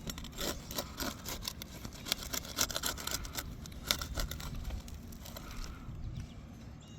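Asphalt roof shingle being pried loose, its sealant strip crackling and tearing apart in a rapid run of sharp clicks and crinkles that stops about five and a half seconds in.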